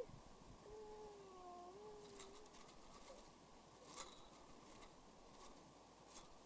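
Near silence with a faint, drawn-out, slowly falling animal-like call about a second in, then a few soft ticks, the clearest about four seconds in.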